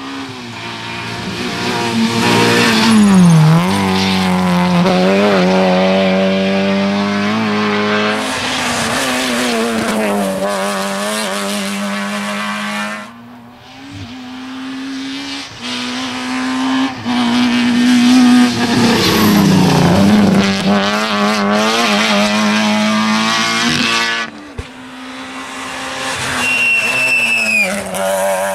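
Two rally cars pass one after the other, each engine revving hard with drops in pitch as it lifts and shifts for the bends. The second is a Citroën Saxo. A short high squeal near the end.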